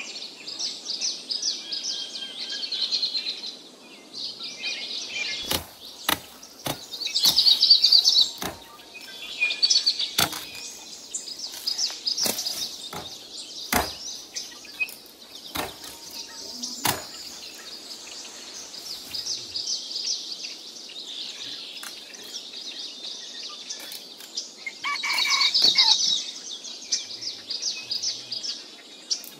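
Birds chirping continuously, loudest in two bursts, with about a dozen sharp, irregularly spaced knocks or taps between roughly five and seventeen seconds in.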